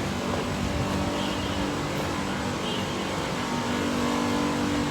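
A car's engine running steadily with road or cabin noise and a constant low hum.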